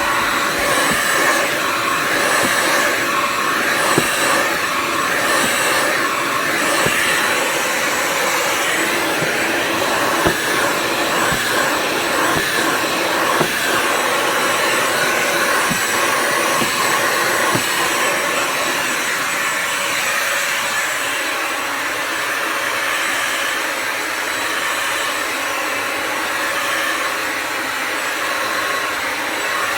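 Bissell Symphony Pet vacuum and steam mop running with a steady motor whine, with scattered clicks and knocks through roughly the first half.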